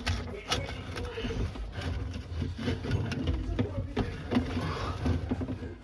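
Scattered clicks and knocks of faucet parts and supply hoses being handled and fitted, over a low background rumble.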